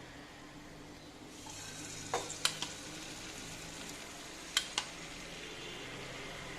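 Beaten egg mixture sizzling in a hot oiled pan as it is poured in, a quiet steady frying hiss that comes up about a second and a half in. A few sharp light clicks cut through it around two seconds in and twice more near five seconds.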